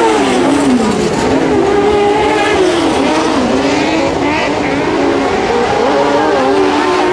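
Engines of 650 cc autocross special crosser buggies racing, revving up and down with the throttle. The pitch drops during the first second, then climbs and falls again and again.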